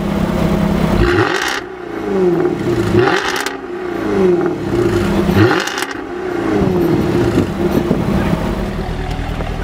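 Jaguar F-Type V8 S's 5.0-litre supercharged V8 revved through its quad exhaust tailpipes while standing still. The engine note rises and falls several times, with a harsh burst at the top of each rev.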